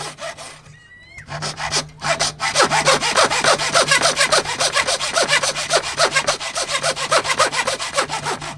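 Hand saw cutting through wood in quick, even strokes, stopping briefly about a second in, then sawing steadily again.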